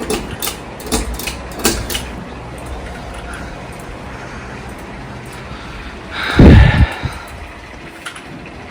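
Minka Aire Supra ceiling fan running with a steady low whir, broken by several sharp clicks in the first two seconds and one loud thump a little past six seconds in.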